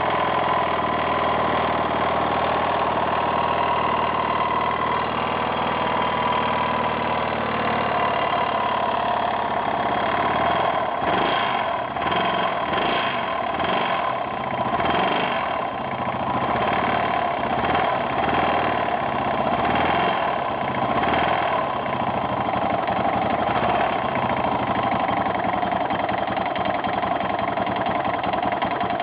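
Yamaha XT600E's air-cooled single-cylinder four-stroke engine running at idle, revved up and down several times through the middle and then settling back to idle. Its owner hears a strange knocking or clattering noise from it whose cause he does not know.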